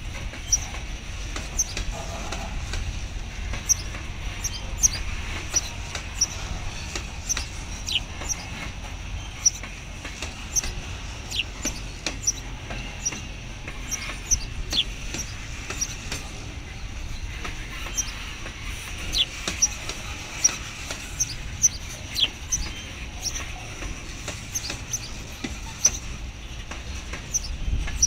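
Freight cars of a long train rolling past: a steady low rumble with many short, sharp high clicks and brief squeaks.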